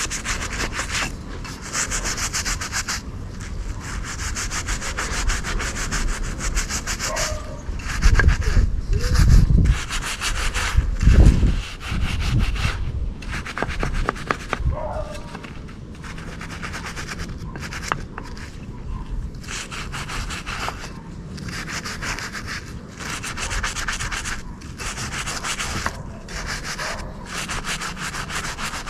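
Rapid back-and-forth scrubbing strokes on a metal part, in runs broken by short pauses, with a few heavy low rumbles about a third of the way in.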